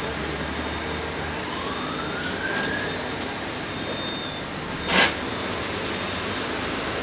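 Inside an articulated city bus on the move: a steady rumble of engine and road noise, with a whine that rises in pitch for about two seconds starting a second in. About five seconds in comes a single sharp knock, the loudest sound.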